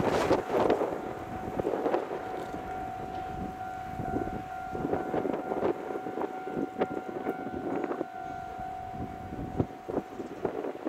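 Wind gusting on the microphone, with a steady high-pitched hum running underneath and a few sharp clicks.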